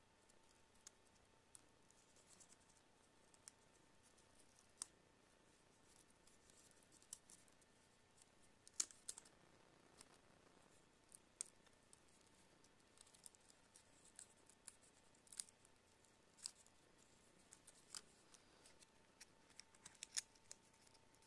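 Faint, scattered clicks and short scrapes of small hand tools working at a tablet's plastic casing, with the sharpest clicks about nine seconds in and near the end.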